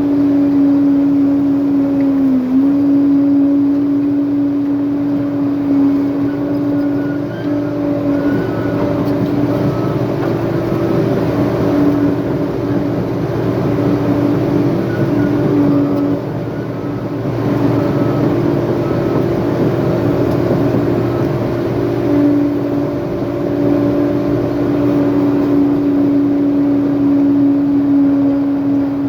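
Diesel engine of a heavy earthmoving machine running steadily at high revs, its pitch dipping briefly twice: about two and a half seconds in and near the end.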